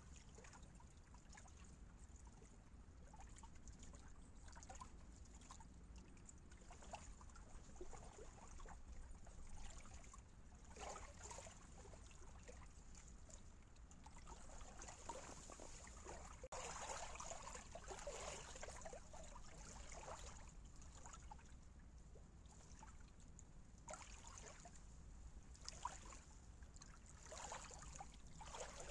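Faint lapping of small waves at a pebbly shoreline, in irregular soft splashes that come and go, over a low steady rumble.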